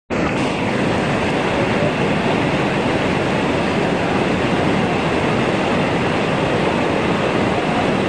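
Waterfall rushing steadily, a constant wash of falling water.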